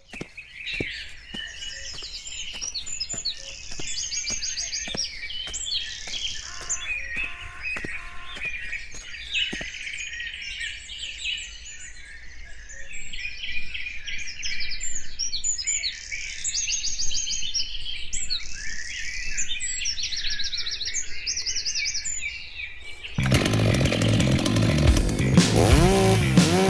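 A dense chorus of songbirds, many high chirps, trills and tweets overlapping. Near the end a loud rock track with guitar cuts in abruptly.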